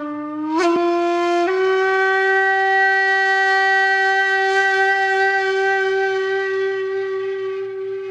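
A single long horn-like wind-instrument note, rich and reedy, stepping up in pitch twice in the first second and a half, then held steady and slowly fading near the end.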